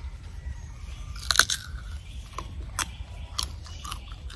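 Crisp crunching bites and chewing of a green, unripe mango. One loud crunch comes about a second and a half in, followed by several smaller crunches.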